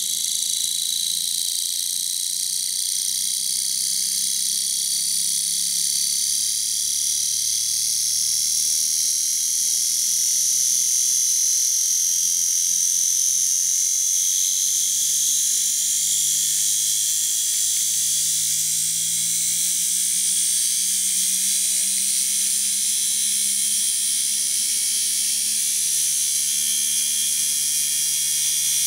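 Pancake-type electric motor running, its flat rotor disc spinning with a steady buzzing whir over a high hiss.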